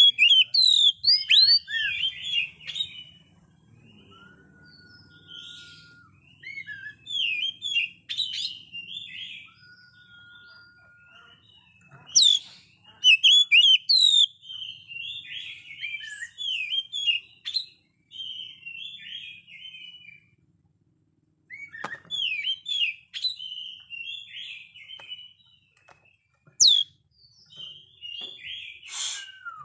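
Oriental magpie-robin singing: bursts of quick, varied twittering and chirping phrases with short pauses between them, and a couple of plain held whistles lower in pitch.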